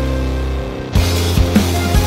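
Background music. A held, sustained passage gives way about a second in to a section with a steady drum beat.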